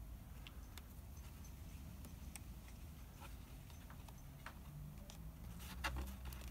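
Faint, scattered light clicks and taps of fingers handling the plastic rear brake fluid reservoir while seating its rubber diaphragm, with a slightly louder cluster of clicks near the end.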